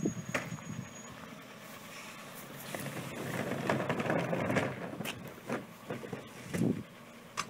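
GeesinkNorba MF300 rear-loader garbage truck idling, while a plastic wheelie bin is rolled across gravel, a rattling swell in the middle, then a few knocks as it is set at the bin lifter near the end.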